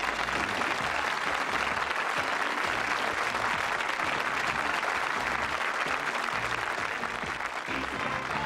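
Studio audience applauding steadily, with music playing quietly underneath.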